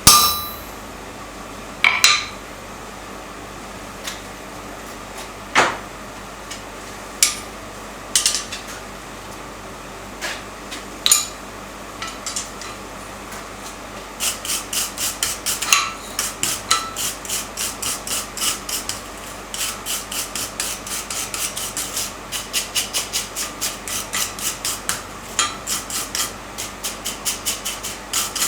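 Hammer blows on steel, each ringing briefly. The first few come singly, a second or more apart. From about halfway they turn into a fast, even run of lighter taps, about four or five a second.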